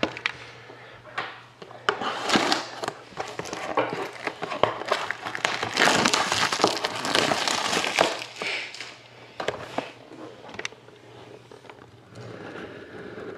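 Plastic shrink wrap on a trading-card box crinkling as it is handled, in irregular crackly bursts that are loudest midway and thin out near the end.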